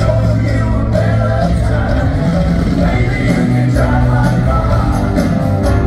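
Live rock band playing at full volume, with bass guitar, drums, guitars and a man singing, recorded from among the audience in a large arena.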